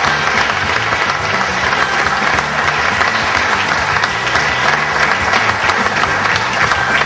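A roomful of guests applauding steadily, dense continuous clapping at the close of a speech.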